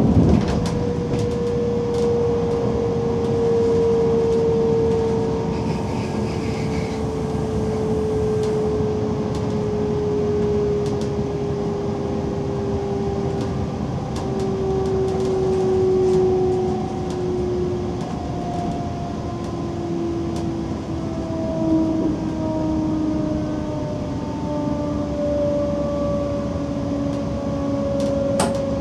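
Class 425 electric multiple unit heard from the cab: a steady running rumble with the traction drive's whine falling slowly in pitch throughout as the train slows. Scattered faint clicks sound over it.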